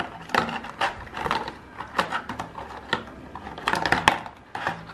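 Irregular clicks and crackles of a plastic packaging tray being handled as earbuds are pulled out of their moulded slots.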